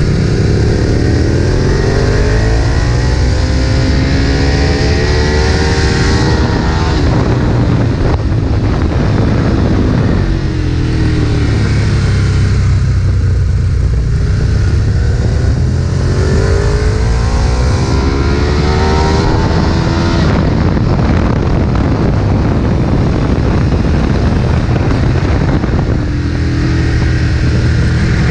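Ducati 1098's L-twin engine pulling hard at speed on a race track: its note rises steadily through the revs, drops at gear changes, and climbs again, in several long pulls.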